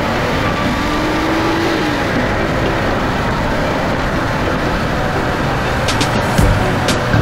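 Subaru BRZ driving at speed, with steady tyre, road and engine noise. A few sharp knocks come near the end.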